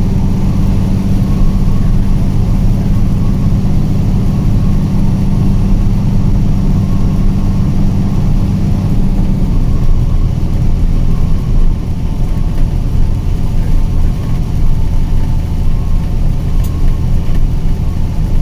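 A car's engine and road noise heard from inside the car while driving, a steady low hum. About nine to ten seconds in, the engine note drops lower.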